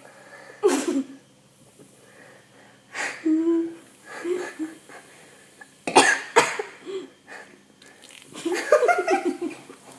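A person coughing and spluttering in several separate short bursts after gulping cold fizzy cola while holding back a burp. A run of short voiced sounds follows near the end.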